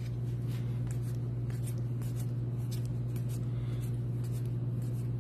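Baseball trading cards being slid and flipped through a stack in hand, a series of light, irregular swishes and scrapes, over a steady low hum.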